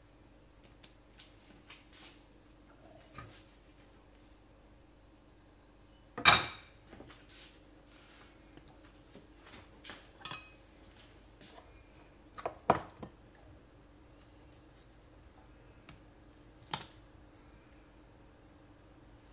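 Scattered clinks and knocks of kitchen utensils and cookware, the loudest a sharp clatter about six seconds in, over a faint steady hum.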